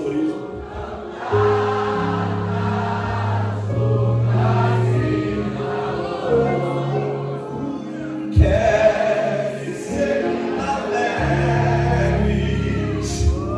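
Gospel worship music: wavering singing voices over long held keyboard and bass chords. There is one sharp knock about eight seconds in.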